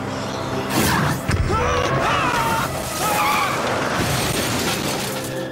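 Cartoon action sound effects over tense background music: a sudden crash-like burst about a second in, then wavering high squeals lasting about two seconds as a pickup truck swerves on the road.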